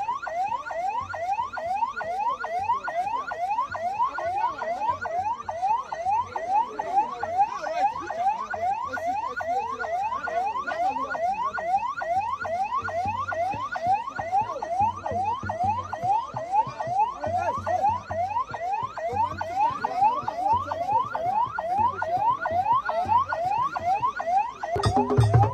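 An electronic siren or alarm: one tone sweeping up in pitch and dropping back, about three times a second, steady throughout. Music with a heavy low beat comes in near the end.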